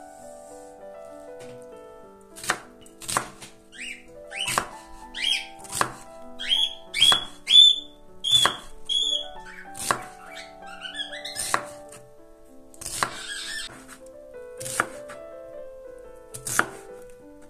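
A chef's knife slicing through a peeled onion onto a wooden cutting board. Each cut is a sharp crunch and knock on the board, coming every second or so from about two seconds in.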